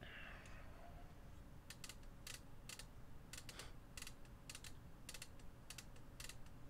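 A run of light, sharp clicks and taps, irregular at about two or three a second, starting a couple of seconds in: small plastic parts of a video recorder deck being handled.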